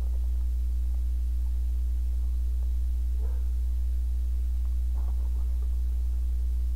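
Steady low electrical hum with a fainter steady tone above it, and a few faint rustles of the plastic bag around the model-kit parts sprue being handled, about three and five seconds in.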